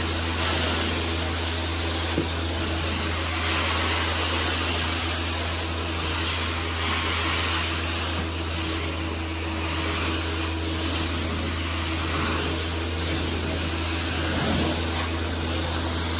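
Hot-water carpet extraction: the wand sprays steaming water into carpet tiles while the extractor's vacuum sucks it back up, giving a steady rushing suction noise over a steady low hum.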